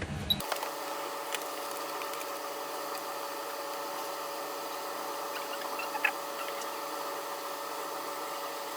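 Hot air rework station blowing steadily onto a phone circuit board: an even hiss with a faint whine, and a couple of faint ticks as the metal shield is heated off.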